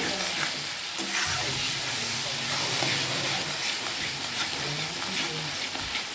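Onion-tomato masala with ground spice paste sizzling in oil in a kadhai, stirred with a metal spatula that scrapes and knocks against the pan. The masala is being fried until the oil separates from it.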